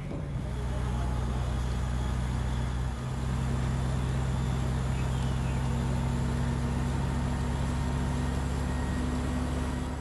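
Fire engine's diesel engine running steadily at pumping speed: a deep, even hum with a steady hiss over it, dipping only briefly about three seconds in.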